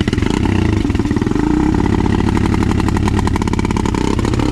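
ATV (quad) engine running loud and steady under throttle as the rider tries to drive the stuck quad out of a mud hole.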